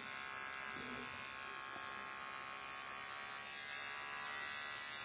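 Electric dog grooming clipper with a #15 blade, running with a steady buzz as it trims the hair at the inside corners of a dog's eyes.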